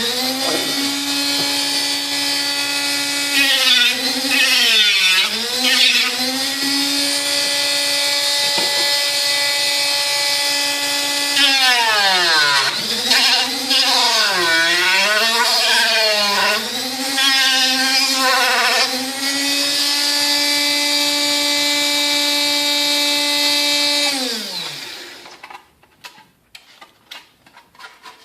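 Dremel rotary tool sanding plastic armor parts: a steady high whine whose pitch repeatedly dips and recovers as the bit bears on the plastic. The tool winds down and stops about 25 seconds in, followed by a few light clicks.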